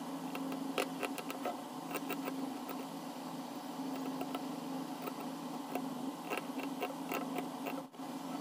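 Steel needle tool scratching and picking at carved stone, an irregular run of small ticks and scrapes over a steady low hum.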